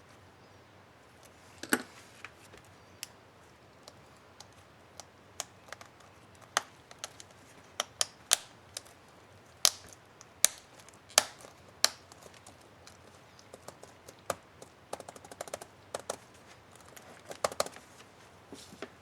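Sharp plastic clicks from an HP ENVY 15-j000 laptop keyboard's key cap and retainer clips being worked and pressed by hand: irregular single clicks, with a quick flurry of small clicks near the end.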